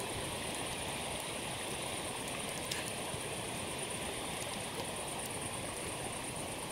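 Steady rush of a flowing river, with a few faint crackles from a wood campfire.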